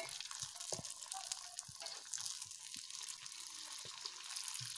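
Tel pitha batter deep-frying in hot oil in an iron karahi: a steady sizzle with fine crackling as the cake puffs up.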